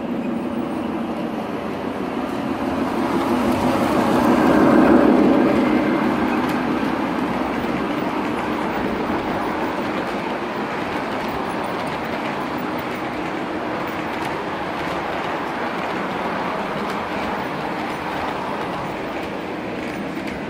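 G-scale model freight train rolling past close by, its wheels running on the track in a steady noise that swells to its loudest about five seconds in and then holds as the cars keep passing.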